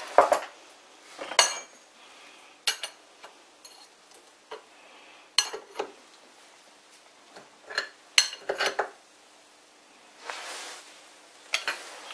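Irregular metallic clinks and knocks, a dozen or so separate sharp strikes spread over several seconds, from steel tools and parts being handled and set down at the lathe during setup. A brief soft hiss comes about ten seconds in.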